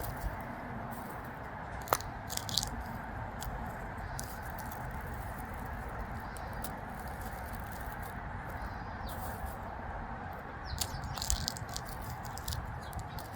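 Steady outdoor background hiss, with short crackling, rustling clicks about two seconds in and again in a cluster near the end.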